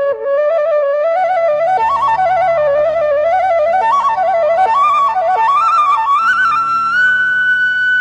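Bansuri (Indian bamboo flute) playing an ornamented melody that climbs step by step and settles on a long held high note near the end. A low drone comes in underneath about two seconds in.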